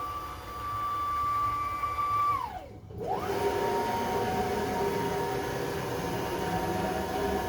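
Motors of a 5 Prime 2642 CNC router driving its axes through a demo move: a steady whine that glides down in pitch and briefly stops about two and a half seconds in, then rises again to a lower steady whine as the next move starts.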